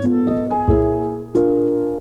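Instrumental background music: a piano-led tune with bass notes, changing notes every half second or so.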